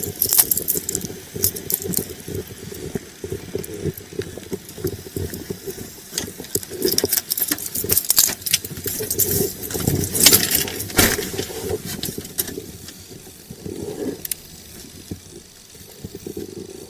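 Jangling, clicking and rustling of gear moving against a police officer's body-worn camera, irregular and close, dying down for the last few seconds.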